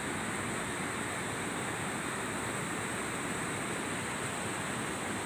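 Steady, even outdoor background noise with no distinct events.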